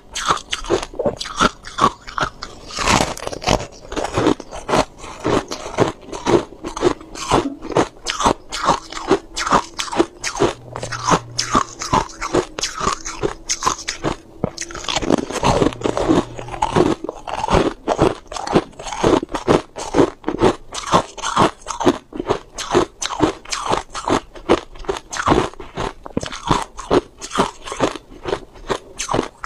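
White crushed ice being bitten and chewed close to a lapel microphone: a steady run of crisp crunches, about three a second.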